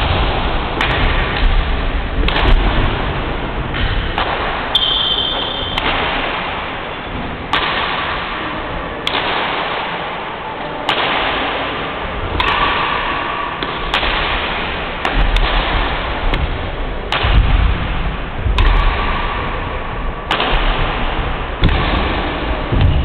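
Badminton rally: rackets striking the shuttlecock with sharp cracks about every second or so, echoing in a large hall, with footsteps thudding on the wooden court floor, over a loud steady hiss.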